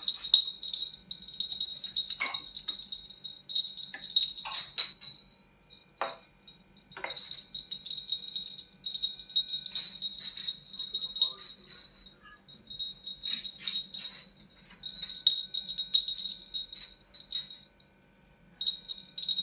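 A small bell on a feather wand cat toy jingles in bursts of a few seconds as it is shaken and batted, with short pauses between bursts and a few sharp knocks.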